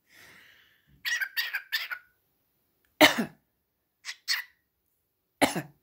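A pet parrot making short mimicked sneeze and cough sounds. Three quick sharp calls come about a second in. A loud sneeze-like burst comes at about three seconds, then two short calls, and another loud burst near the end.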